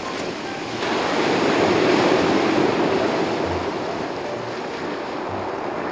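Sea surf breaking on a pebble beach: the wash of a wave swells about a second in and slowly eases off.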